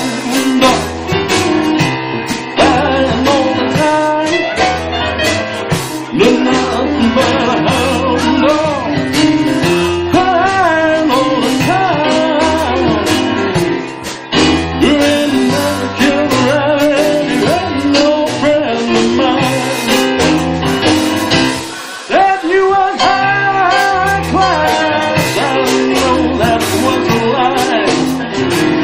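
Live boogie-woogie rock and roll from a small band: stage keyboard played as a piano, electric bass and drums, with a male voice singing.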